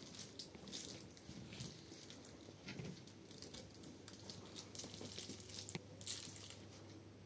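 Faint rustling and scattered scratchy clicks from Shiba puppies scrambling and playing on blankets.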